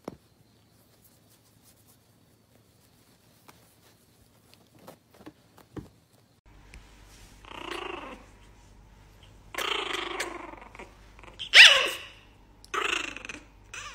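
Small white fluffy puppy growling in four or five short bouts, the loudest one near the end. Before that there are a few seconds of near silence with faint soft clicks.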